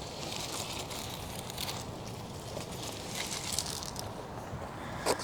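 Faint rustling and scraping of soil and a succulent plant being handled, over a steady outdoor background noise.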